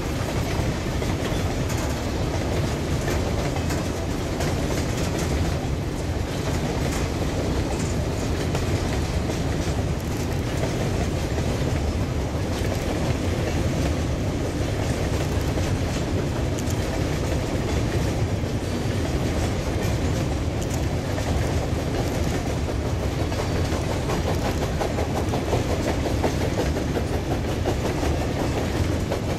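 Freight train of coal hopper wagons rolling along the track behind a steam locomotive: a steady rumble with wheels clattering over the rail joints.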